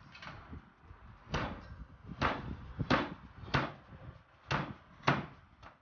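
A large kitchen knife chopping through a raw whole chicken onto a plastic cutting board: about six sharp chops, roughly one every three-quarters of a second.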